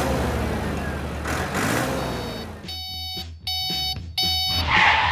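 Toy dump truck's electronic reversing beeper sounding three times, each beep about half a second long, after a steady noisy stretch.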